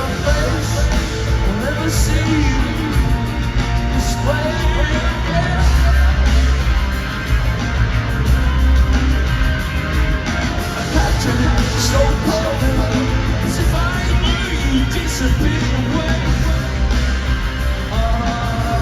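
Live rock band playing loud with singing over it: heavy bass and drums and distorted guitar, heard from the audience in a large arena.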